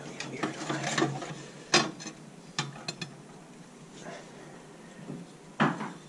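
Steel burner tubes of a gas steam boiler being worked loose and slid out of the burner tray, with scraping and a few sharp metallic clinks and knocks, the loudest near the end.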